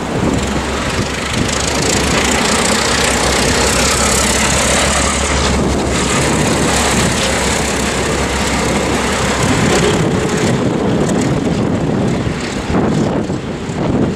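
Diesel-electric locomotive 48s33, a 48 class, passing close by while running light engine. Its engine gives a steady low drone that eases after about ten seconds. Gusty wind buffets the microphone.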